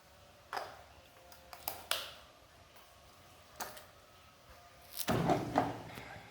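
Scattered sharp clicks and knocks from objects being handled, four single ones and then a quick cluster of knocks about five seconds in; no steady spray or motor sound.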